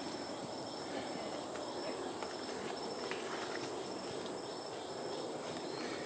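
Rainforest insects calling: a steady high-pitched drone, with a second insect's short chirp repeating in a regular rhythm about twice a second.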